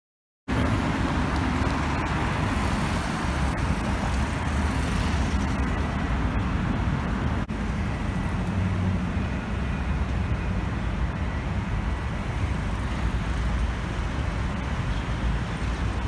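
Steady road and traffic noise with a low rumble, heard from a moving car. It starts abruptly about half a second in, after silence, and breaks off briefly about halfway through.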